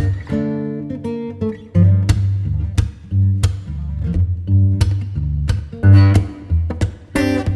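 Background instrumental music led by plucked and strummed guitar over a steady bass line.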